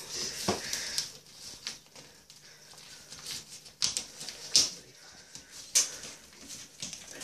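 A cat chewing and pawing at an empty plastic catnip bag on a stainless-steel draining board: irregular sharp crinkles and scrapes, a few louder than the rest.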